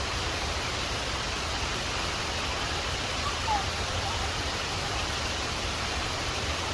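Steady rushing of a waterfall close by, an even wash of falling water with no breaks.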